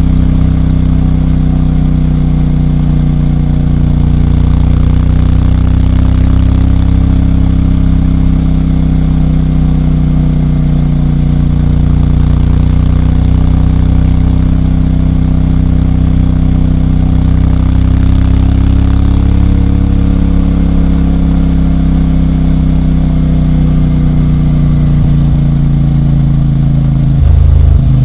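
CFMOTO 450MT's 449 cc parallel-twin engine running steadily, its pitch drifting slightly up and down, growing briefly louder with a change in pitch near the end.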